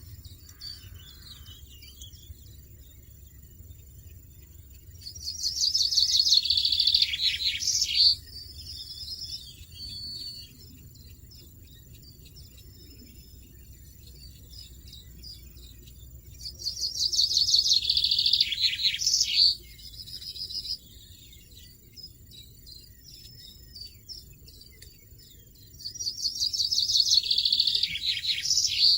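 European goldfinch twittering in three bursts of about three seconds each, roughly ten seconds apart, each a quick run of high notes.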